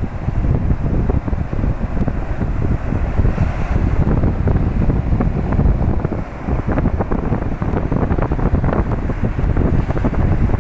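Wind buffeting the microphone in loud, gusting rumbles, with sea surf washing beneath it.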